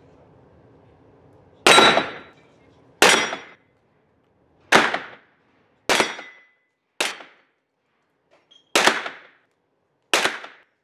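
Seven pistol shots fired one at a time, spaced about one to two seconds apart, each followed by a short echo off the indoor range's walls.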